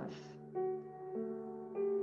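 Soft, slow instrumental background music: held notes with a new note or chord coming in about every half second.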